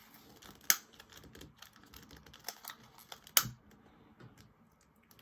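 A scatter of small clicks and handling taps, with two sharp, louder clicks, one under a second in and one about three and a half seconds in.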